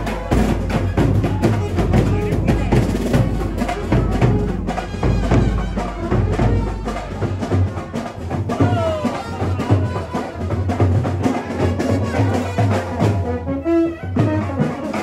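Street procession band playing: rapid, dense drumming under a saxophone-led melody.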